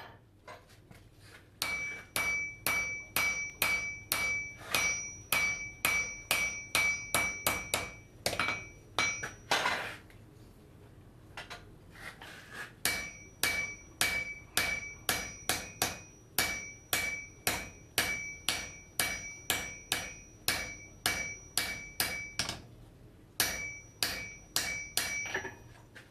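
Blacksmith's hammer striking an anvil in a steady forging rhythm of about three to four blows a second, each blow leaving a clear, high ring. The hammering breaks off for a few seconds near the middle, resumes, and pauses briefly again near the end.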